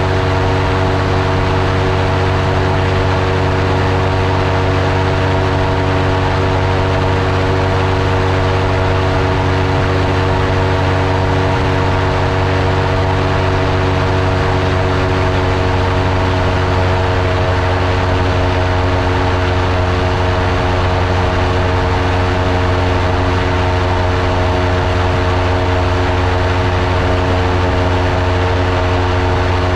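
Airtime Aircraft Cygnet ultralight's engine and propeller running steadily at cruise power in level flight, an even, unchanging drone with a rush of air over the microphone.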